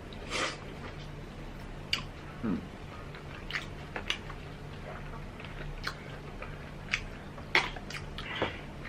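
Close-up eating sounds: chewing and biting, with scattered short crisp crunches and clicks about once or twice a second over a steady low hum.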